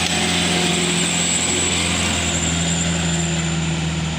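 A vehicle engine running steadily, a low hum that holds one pitch throughout, with road noise.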